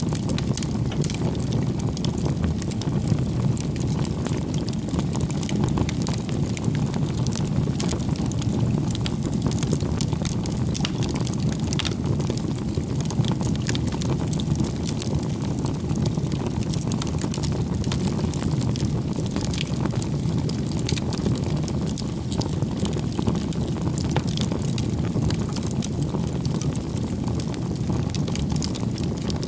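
Bonfire burning: a steady low rumble of flames with frequent small crackles and pops.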